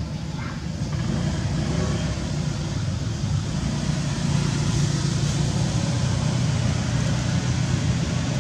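Steady low rumble of a motor vehicle engine running, a little louder after the first second.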